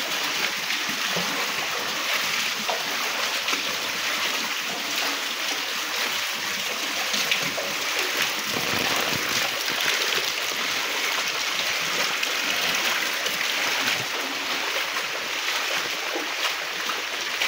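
Heavy rain falling and runoff water flowing along a flooded lane: a steady hiss of water with many small splashes and patters.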